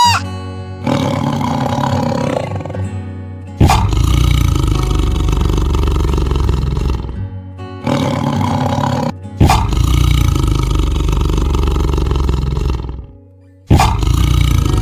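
A big cat roaring: a run of long, loud roars, each starting suddenly and lasting a few seconds, over background music.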